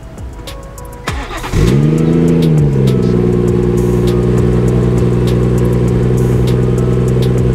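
2018 BMW 340i's B58 turbocharged straight-six starting up, heard at the exhaust. About a second and a half in it fires, the revs flare up and fall back over about a second, then it settles into a steady idle.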